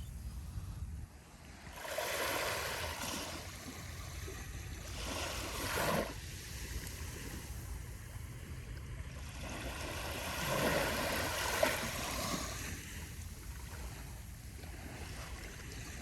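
Small, gentle ocean waves lapping and breaking at the shore on a calm sea. Two wash-ups, one about two seconds in that peaks just before six seconds and a longer one from about ten seconds, rise and fall over a low steady rumble.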